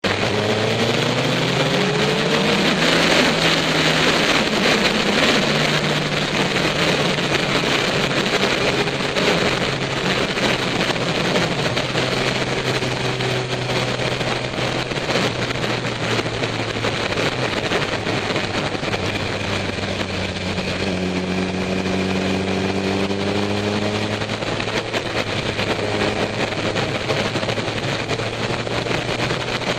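Motorcycle engine running at road speed, recorded from a camera mounted on the bike, under a heavy rush of wind and road noise. The engine note rises and falls with throttle and gear changes, climbing near the start and again about twenty seconds in.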